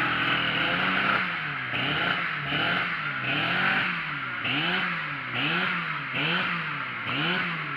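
Small two-stroke chainsaw engine being revved up and down over and over, its pitch rising and falling about once every three-quarters of a second.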